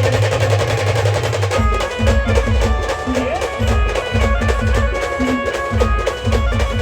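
A band playing loud, fast devotional music: heavy drums beating in a rapid, dense rhythm under a held melody line.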